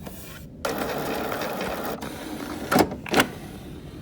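Canon PIXMA MX490 inkjet printer's internal mechanism running for about a second and a half, then two sharp clicks. This is the cartridge carriage and gears moving after the cover is closed on newly installed ink cartridges.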